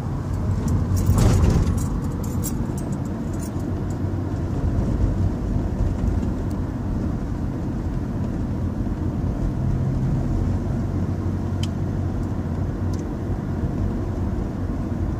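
Car driving at road speed, heard from inside the cabin: a steady rumble of engine and tyre noise, with a brief louder swell about a second in.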